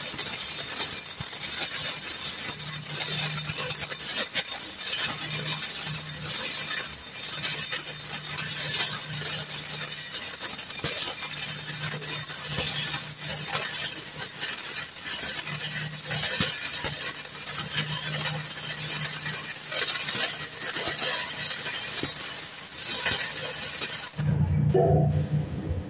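Self-shielded flux-cored welding arc, Lincoln Innershield NR-305 5/64-inch wire fed from an LN-25 Pro at about 29.5 volts, burning steadily with a continuous crackling sizzle as a full-penetration plate weld is run. About two seconds before the end the arc stops, and a loud low hum takes over.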